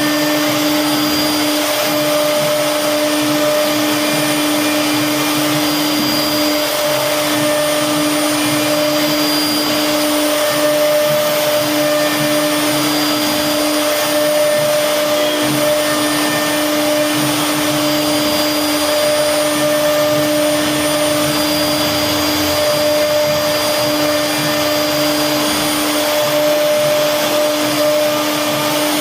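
CNC router spindle running steadily while it carves a bed-leg design in wood, a constant motor whine over a hiss of cutting.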